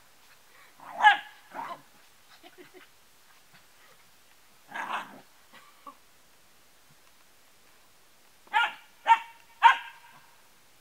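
A young husky barking in play: two sharp barks about a second in, one near the middle, then three quick barks in a row near the end.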